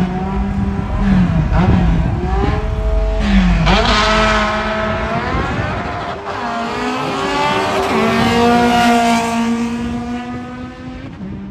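Drag car engine revving hard, its pitch dropping sharply twice in the first few seconds, then climbing and holding at high revs before dying away near the end.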